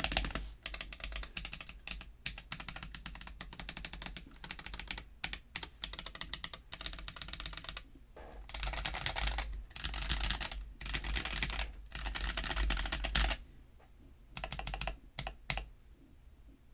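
Typing on a Womier K66 mechanical keyboard with stock Akko CS Ocean Blue switches and PBT keycaps: fast runs of key clacks, loudest in bursts through the middle, thinning to a few keystrokes near the end.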